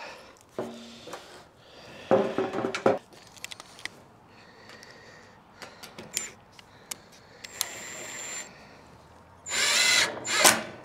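Cordless drill run in several short bursts, fixing corrugated iron sheet to a wooden post, with clicks and knocks in between. The last burst, near the end, is the loudest.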